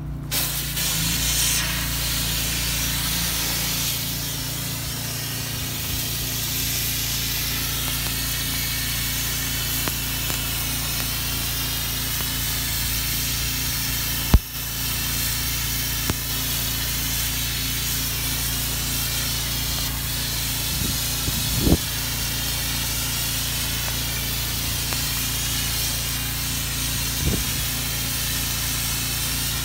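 Pressure washer running steadily: the hiss of the high-pressure water jet hitting brick over the constant hum of the machine. A sharp click about halfway through, and a couple of smaller knocks later.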